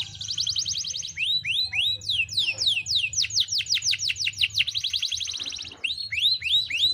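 Canary singing in fast trills of rapidly repeated notes. The song alternates quick rolls with slower runs of downward-sweeping notes, and pauses briefly about five seconds in before going on. A faint low hum lies underneath.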